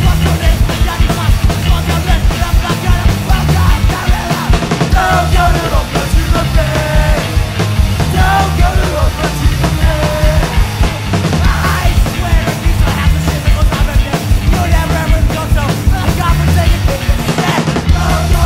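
Hardcore punk band recording playing: distorted electric guitars, bass and dense, driving drums, loud throughout.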